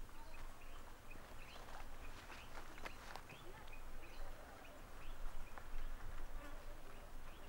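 Outdoor rural ambience: scattered short bird chirps over a steady low rumble, with a few sharp clicks about three seconds in.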